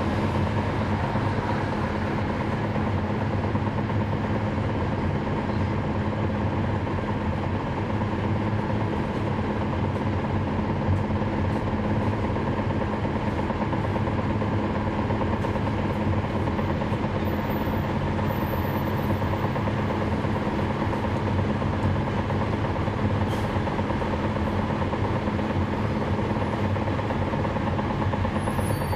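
Cummins ISL9 diesel engine of a NABI 416.15 transit bus, heard from inside the bus, running at a steady, unchanging speed with a low hum.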